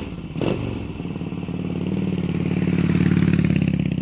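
V-twin motorcycle engine running with a fast, even pulsing beat. It gives a short throttle blip about half a second in, then runs steadily, swelling somewhat louder toward the last second before easing off.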